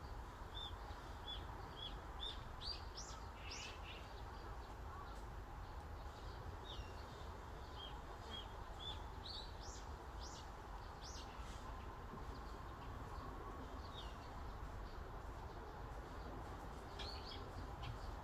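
Small forest birds chirping over a steady breeze. Short repeated notes and quick whistled sweeps come in loose phrases, with a lull in the middle and another cluster near the end.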